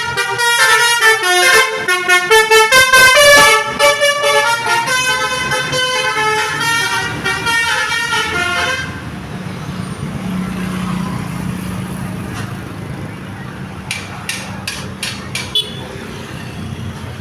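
Basuri V3 telolet horn playing a quick, catchy melody of short horn notes at changing pitches, which stops about nine seconds in. A low steady hum follows, with a few sharp clicks near the end.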